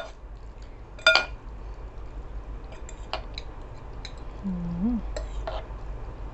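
Eating utensils clinking against dishes: one sharp ringing clink about a second in, then a few lighter clicks.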